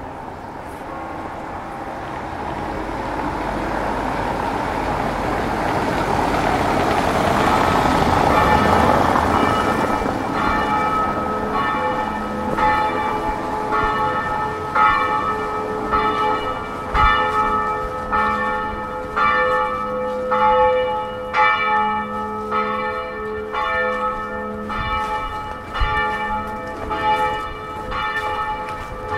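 A passing vehicle swells and fades over the first ten seconds or so; then church bells start ringing, several bells of different pitch struck over and over in an uneven peal.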